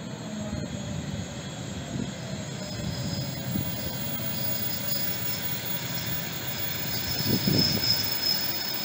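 EP2D electric multiple unit running along the platform towards the listener, wheels rumbling on the rails. A high, thin, steady squeal grows stronger from about three seconds in, and the rumble swells near the end as the train draws close.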